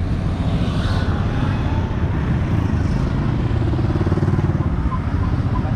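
Steady low rumble of street traffic with motorbike engines.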